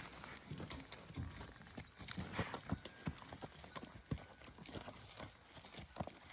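Horses close by: irregular hoof clops and knocks, a few each second, with some low thuds.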